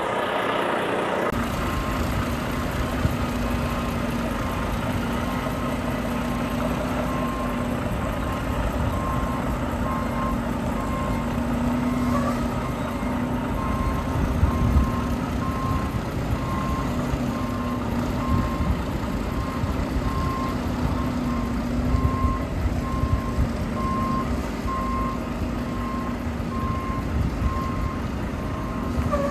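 A Volvo semi truck backing up, its reverse alarm beeping at one steady pitch over and over, over the rumble of the running diesel engine. The beeping starts about a quarter of the way in.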